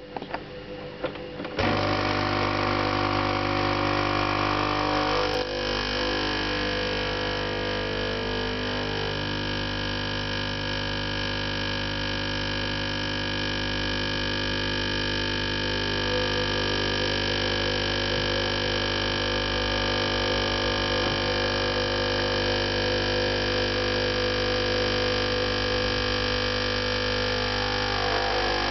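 Saeco Magic espresso machine's vibratory pump buzzing steadily after a few quieter clicks and rattles at the start, forcing water through a too-finely ground puck. The coffee is slow to come through, the sign of an over-extracted shot.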